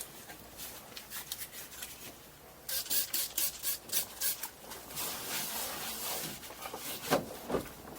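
Quick rubbing strokes over the camper's bed-liner-painted surface, working at a white film on the paint that comes off. A run of short scratchy strokes starts about three seconds in, with softer rubbing and a couple of dull knocks later.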